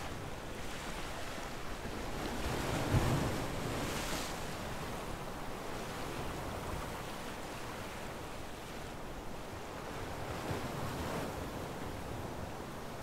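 Steady outdoor ambience of rushing wind and water wash, like small waves, swelling briefly about three to four seconds in.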